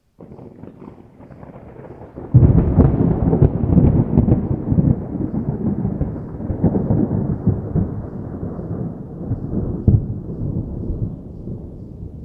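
Distant thunder: a low rumble starts, swells suddenly into a loud roll about two seconds in, then rolls on and slowly fades, with one more brief peak near the end.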